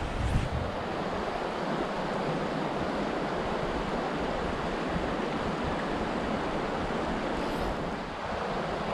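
Fast-flowing Madison River current rushing steadily over rocks around a wading angler, an even watery wash.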